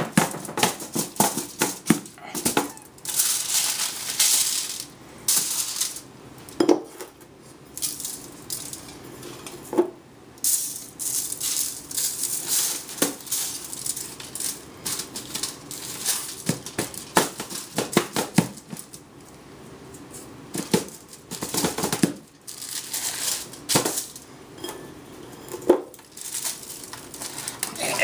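Hands rubbing and pressing a dry spice rub into a raw brisket on a foil-lined sheet pan: aluminum foil crinkling and rustling in irregular bursts, with occasional soft pats and taps on the meat.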